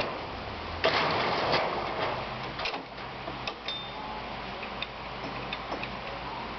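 Metal clinks and a short clatter about a second in, then scattered light ticks and clicks: a steel gear-selector part and a 17 mm wrench being handled and fitted.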